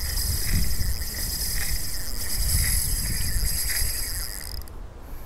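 Shimano Stella 2500 spinning reel's drag buzzing steadily as a hooked heavy fish strips line off it, stopping abruptly near the end.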